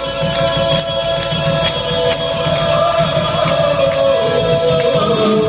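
A live band plays a spiritual-verse song in a rock arrangement: male vocals hold long notes over acoustic guitar, bass guitar, keyboard and drums.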